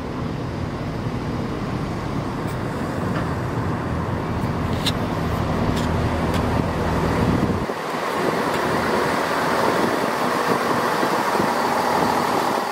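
CrossCountry Class 170 Turbostar diesel multiple unit running past along the platform: the low hum of its underfloor diesel engine under the rumble of wheels on rail, with a few light clicks. About two-thirds of the way through the engine hum drops away, leaving a louder rushing rumble of wheels and bodywork.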